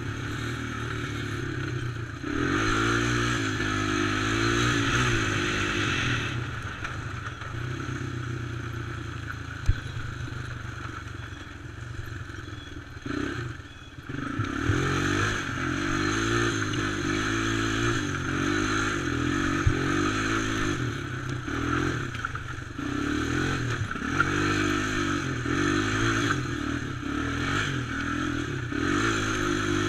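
Quad (ATV) engine being ridden hard, revving up and down with the throttle, easing off about halfway through and then picking back up. A few sharp knocks and rattles from the rough trail.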